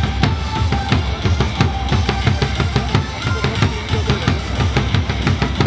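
Loud drum-driven cheer music with a fast, steady beat of bass drum and snare hits.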